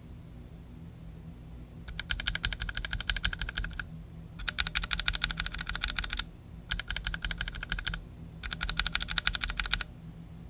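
Typing on a mechanical keyboard fitted with Akko CS Matcha Green linear switches: four runs of fast keystrokes, each a second or two long, separated by short pauses, over a faint steady hum.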